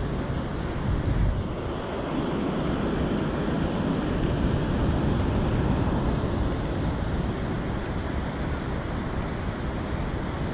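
Steady rush of wind buffeting the microphone over the wash of moving river water.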